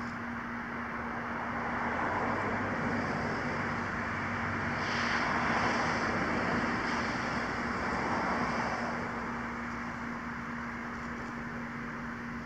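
A passing road vehicle whose tyre and engine noise swells from about two seconds in and fades away by about nine seconds, over a steady low hum.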